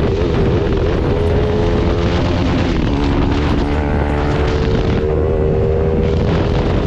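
Bajaj Pulsar RS200 single-cylinder engine running through a loud aftermarket exhaust while riding, with wind rushing over the microphone. The engine note dips about halfway through, then settles back to a steady drone.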